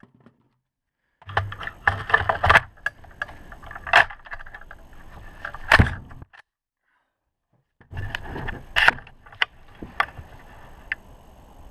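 Close-up clicks, rattles and scrapes of a rifle and gear being handled against the camera, in two stretches with dead silence between, with a few sharper clicks standing out.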